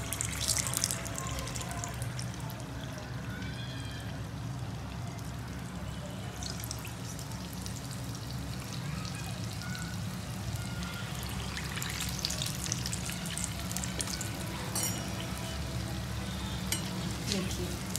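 Dahi vada batter balls of ground urad dal deep-frying in hot oil in a small iron kadai: steady sizzling and fine crackling, livelier at the start as the batter goes in and again about twelve seconds in. A steady low hum runs underneath.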